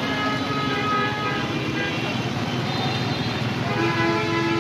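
Road traffic and vehicle engines running steadily on a waterlogged street. About a second before the end, a vehicle horn starts and holds a long blast.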